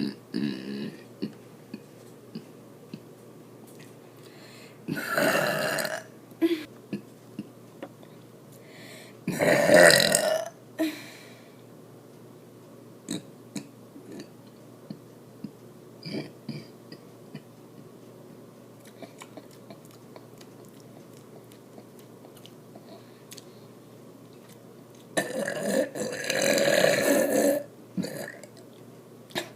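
A woman belching three times: a short burp about five seconds in, a louder one about ten seconds in, and a longer, drawn-out belch near the end.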